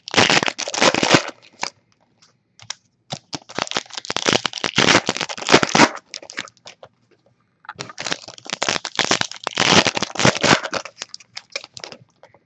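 Foil trading-card pack wrapper crinkling and crackling as it is torn open and handled, in three long bursts with short pauses between.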